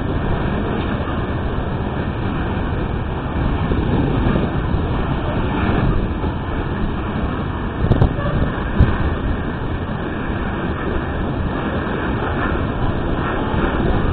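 Freight train's coal cars rolling steadily past: a continuous rumble of wheels on rail, with two sharp clicks about eight and nine seconds in.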